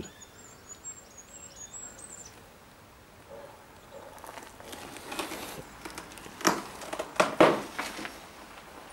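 Footsteps scuffing and crunching over debris on a floor, irregular and loudest in a few steps in the second half. A string of faint high chirps comes in the first couple of seconds.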